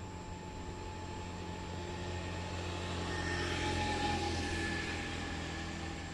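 A motor passing by: a steady engine hum with a higher whine that swells to a peak about four seconds in, then fades.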